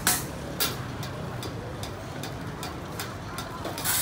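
A pause in drumming on a makeshift kit of pots, pans, tins and plastic tubs: a couple of sharp hits at the start, a few light taps, and another hit near the end. Under it is a steady street background of traffic hum and indistinct voices.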